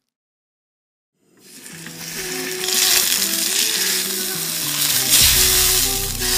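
Beef steak sizzling as it sears in a hot frying pan, held on its edge with tongs. The sizzle begins after about a second of silence and grows louder, over background music.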